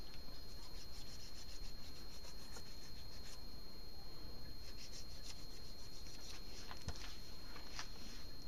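Faint rubbing and scattered light clicks from hands working on the skinned lamb at the spit, winding wire to bind the carcass on.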